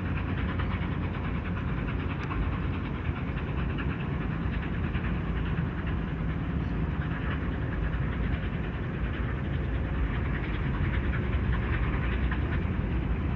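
Steam locomotive 3801, an NSW C38 class Pacific, chuffing steadily as it hauls its passenger train across a steel truss bridge, over the rumble of the train.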